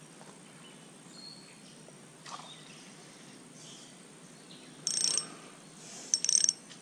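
Quiet outdoor background, then short bursts of close, high-pitched rattling and rustling about five seconds in and several more near the end, as a freshly hooked bluegill and the line are handled right at the microphone.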